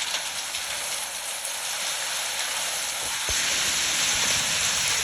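Heavy rain and hail coming down in a dense steady hiss, growing louder about three seconds in, with a single sharp knock.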